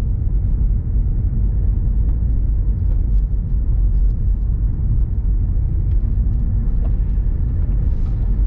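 Steady low rumble of a car driving on a wet road, engine and tyre noise heard from inside the cabin. A windscreen wiper sweeps across the glass near the end.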